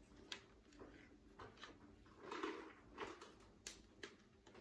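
Faint handling sounds: a few light clicks and short rustles as a small plastic item is turned over in the hands.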